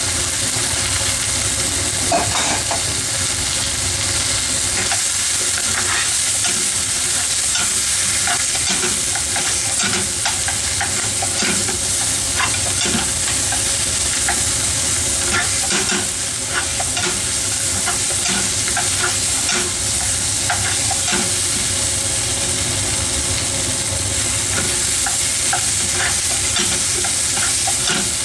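Meat and vegetables sizzling in a frying pan, stir-fried with a wooden spatula that scrapes and knocks against the pan over and over from about two seconds in.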